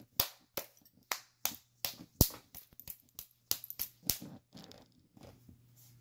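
A quick, irregular run of sharp clicks and taps, about a dozen in four seconds and then fewer and fainter, over a low steady hum.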